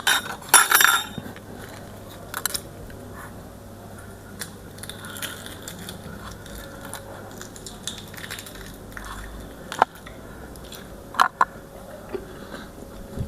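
Close-miked eating: scattered bites and chewing with occasional sharp clicks. The loudest is a short burst about half a second in, with a few more sharp ticks near the end.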